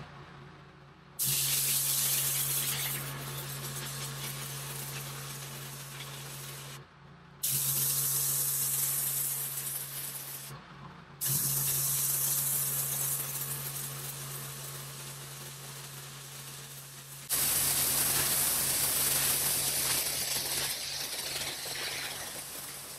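Pressure washer lance blasting water onto a concrete driveway: a loud, steady hiss of spray that stops briefly and comes back sharply three times as the trigger is let go and squeezed again, over a low steady hum.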